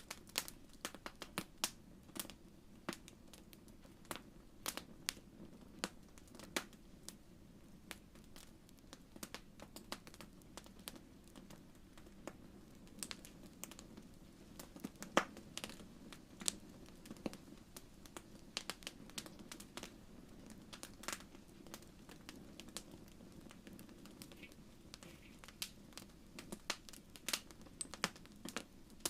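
Wood fire crackling in a fireplace: irregular sharp pops and snaps over a steady low hiss of the burning logs.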